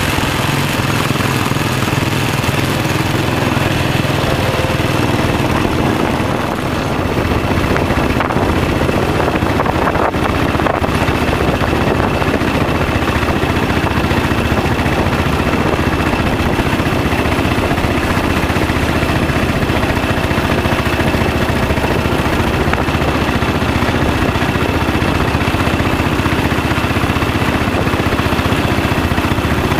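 Royal Enfield single-cylinder motorcycle engine running steadily while riding at road speed, with wind rushing over the microphone.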